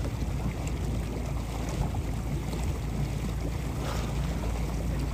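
Steady low rumble of wind on the microphone, with water noise from a slow-moving boat.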